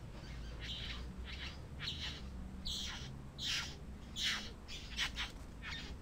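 Male satin bowerbird giving a run of short, rasping calls at his bower, several a second, louder toward the middle.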